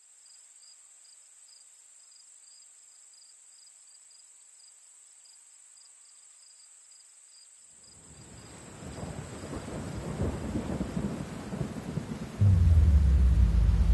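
A thunderstorm: the hiss of rain builds up about eight seconds in, then a loud clap of thunder breaks about twelve seconds in and rolls on with a deep rumble. Before the storm there is only a faint hiss with a thin, steady high tone.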